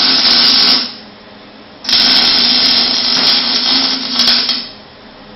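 Welding arc crackling and hissing in short runs, with a low steady hum under it while the arc burns. One run stops just under a second in; another strikes about two seconds in and lasts a little over two and a half seconds.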